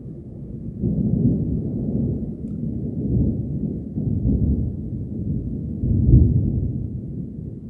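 Thunder rolling: a long, low rumble that builds about a second in, swells several times, is loudest about six seconds in, and fades toward the end.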